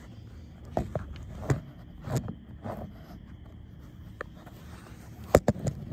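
Handling noise from a handheld phone camera being moved about and set down: scattered soft knocks and rubs, then a quick cluster of sharp knocks near the end.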